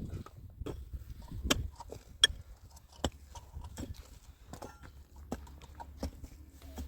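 A series of irregular, sharp knocks and clicks, the loudest a little over two seconds in, over a faint low rumble.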